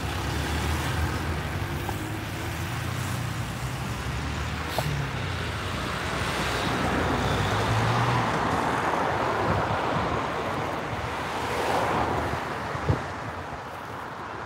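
Steady low hum of heavy diesel lorry engines idling, joined by a rushing noise that swells in the middle. A couple of sharp knocks near the end.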